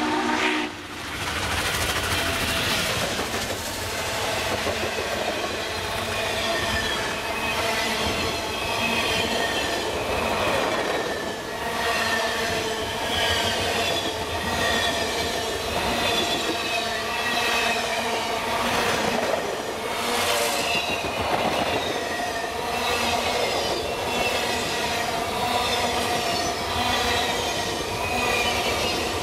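The last moment of a steam locomotive whistle cuts off just as Norfolk & Western J Class 611 passes. Its string of passenger cars then rolls by close to the track: a steady heavy rumble of wheels on rail, with rail-joint clatter and repeated short high wheel squeals.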